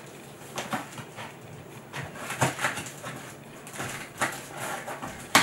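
Hands handling a cardboard shipping box and picking at its packing tape: a string of short scratching and rustling sounds, with a sharp click near the end.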